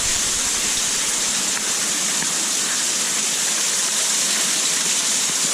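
Steady rushing and splashing of a small waterfall inside a cave, even and unbroken.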